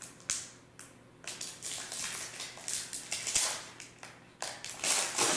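Trading cards being handled, rustling and sliding against one another in uneven bursts.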